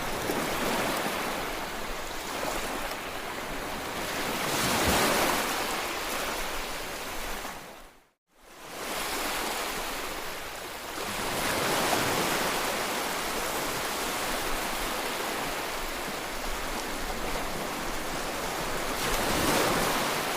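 Ocean waves washing in, a steady rush of surf that swells about every seven seconds, with a brief fade to silence about eight seconds in.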